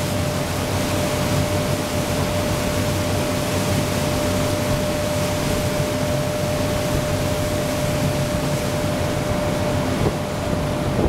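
Tour boat's engines running steadily as the vessel comes alongside the wharf, with a constant hum and wind and water noise over it.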